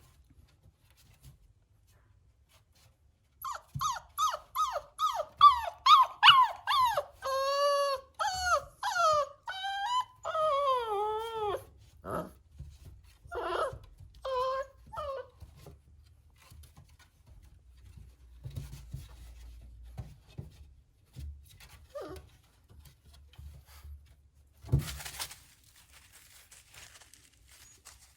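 Boerboel puppy whimpering: a quick run of short, high-pitched yelps, about four a second, that turns into longer wavering whines, then a few scattered whines. A sharp thump and a brief rustle come near the end.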